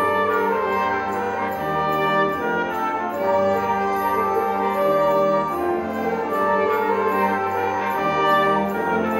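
Middle-school concert band playing slow held chords led by the brass, the chords changing every second or so.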